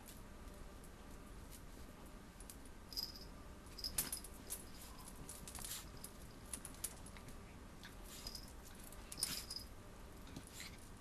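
Puppy chewing and tugging at plush toys on carpet: faint rustling and scattered clicks with small metallic jingles, a few brief high squeaks, and a louder cluster about four seconds in.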